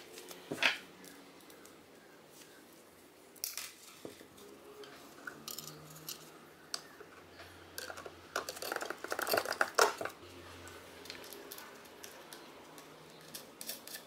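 Clicks, knocks and rattles of gloved hands handling wires and small parts inside a metal electrical control panel box: a sharp click about half a second in, and a quick flurry of clicking and rattling a little after the middle.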